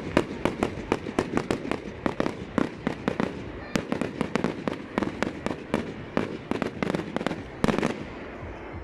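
Aerial fireworks display: a rapid volley of sharp bangs from bursting shells, about three or four a second, closing with a longer, denser burst near the end.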